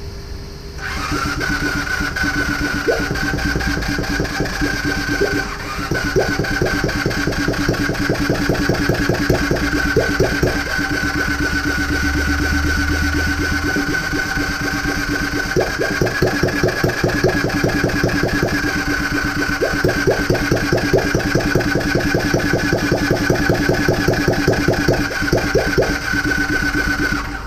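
Honda CB250N's electric starter cranking its parallel-twin engine on power jumped from a car battery: a steady whine over a fast, even chuffing, with a brief let-up about five seconds in. The engine turns over with a few sharper pops, firing but not catching and running.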